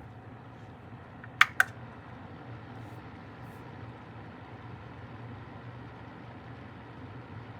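Vornado AVH10 space heater's fan running steadily in fan-only mode, a constant airy rush with a low hum. About a second and a half in, two sharp clicks come in quick succession.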